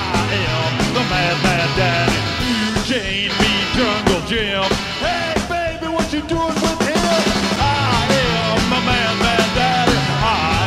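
Rock music in a punk style, with a steady drum beat and a wavering lead melody.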